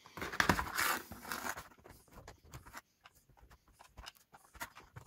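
Handling noises of a screwdriver being taken up and worked against the plastic clips of a COM2000 steering-column switch housing: a scraping rustle in the first second and a half, then scattered small clicks and taps.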